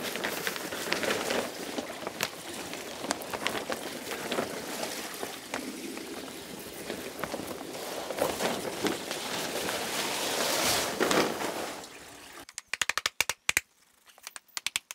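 Wet plastic tarpaulin rustling and crackling as it is dragged off wet concrete, with water running off it. Near the end, a quick run of sharp hammer taps against the concrete's shuttering.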